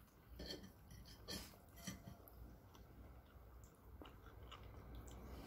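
Faint chewing of a mouthful of pasta, with a few soft clicks in the first two seconds, over a low steady hum.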